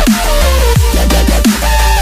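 Dubstep-style electronic background music: a heavy, steady deep bass with falling bass swoops about every three-quarters of a second under a synth melody.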